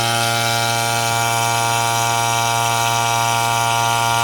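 Robinair two-stage vacuum pump running with a loud, steady hum, pulling a vacuum on an air-conditioning system through the gauge hoses.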